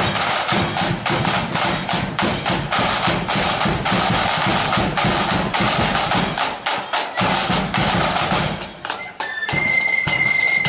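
Marching flute band's side drums playing a fast, even beat with rolls; the drumming breaks off briefly near the end and the flutes come in on a high held note about a second before the end.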